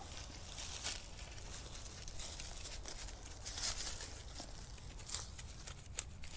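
Soil and grass being dug and scraped by hand with a small trowel, a series of short irregular rustles and crunches with a sharp click about six seconds in.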